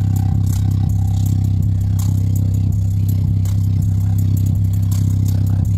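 Sony hi-fi loudspeaker's woofer playing a single deep bass note held steadily at high volume, the cone pumping hard.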